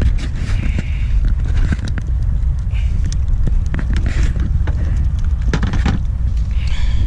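Wind buffeting the microphone as a steady low rumble, with scattered knocks and rustles. The plastic lid of a cooler is snapped shut about five and a half seconds in.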